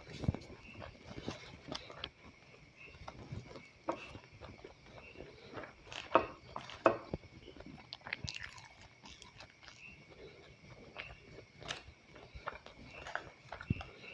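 A person chewing and crunching a mouthful of fried rice and fried chicken nuggets, with scattered irregular clicks and knocks, a couple of them louder about six and seven seconds in.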